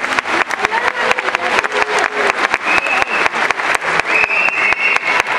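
Audience applauding, the claps dense and irregular, with a few held high calls from the crowd in the second half.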